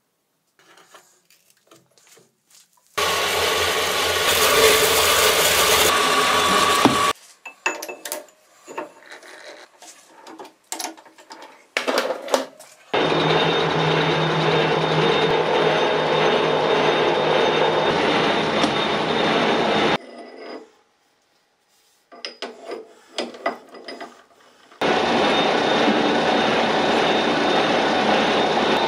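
A workshop power tool running in three long spells of several seconds each, with clicks and knocks from handling the work in the quieter gaps between.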